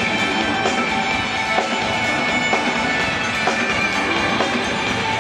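Loud music with drums and a steady beat.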